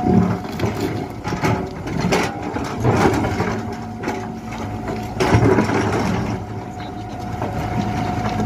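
Tata Hitachi tracked excavator's diesel engine running under load while its bucket digs into rocky soil, with several loud scrapes and knocks of steel on stone. A steady whine comes in near the end.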